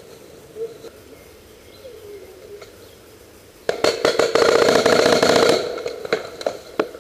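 Paintball markers firing: a few sharp single shots a little past halfway, then a rapid burst of shots lasting about a second and a half, then a few more single shots.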